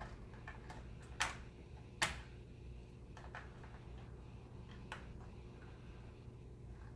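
A few sharp plastic clicks and taps from hands handling an opened laptop's parts during a RAM stick install, the loudest about two seconds in, with fainter ticks between.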